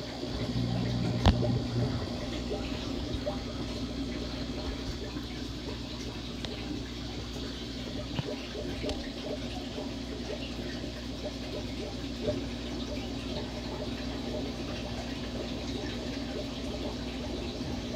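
Aquarium water bubbling and splashing steadily at the surface from the tank's air-driven sponge filters, under a steady low hum, with one sharp click about a second and a half in.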